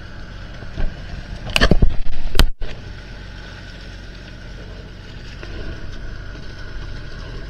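Yellowtail thrashing and splashing in a set net's bag net, over the steady low rumble of a boat engine running. About two seconds in comes a loud burst of splashing and rustling close to the microphone, which cuts off suddenly.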